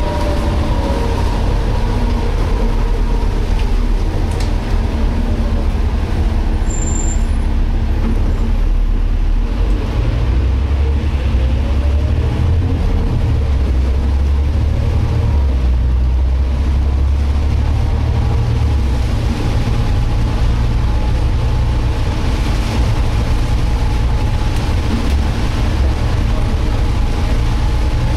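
Inside a Volvo B7TL double-decker bus on the move: steady low engine and road rumble with a whine from the rear differential, the strange diff noise, its pitch shifting a little with road speed.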